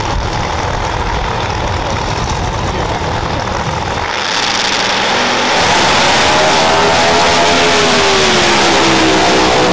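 Drag-race car engines rumbling at the start line, then about four seconds in they launch at full throttle, getting louder and harsher, with the engine pitch gliding up and then back down as the car runs down the strip.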